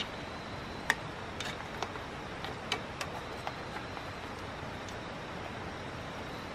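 Wooden spatula stirring a stainless steel pot of seafood stew: scattered light clicks and knocks, most of them in the first half, over a steady hiss.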